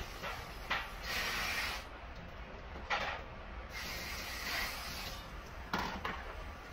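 Kitchen cleaning sounds: about five irregular hissing swishes, some brief and some about a second long.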